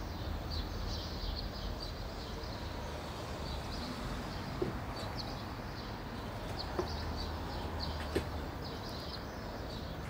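Street ambience: small birds chirping again and again over a low steady rumble, with three faint clicks.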